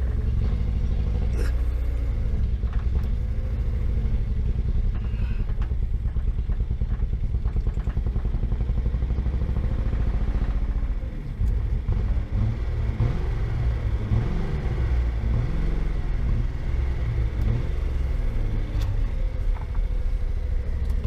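1975 Datsun 280Z's straight-six engine running rough. Its note drops briefly about halfway through, then wavers unevenly. The owner suspects a clogged fuel filter is starving it.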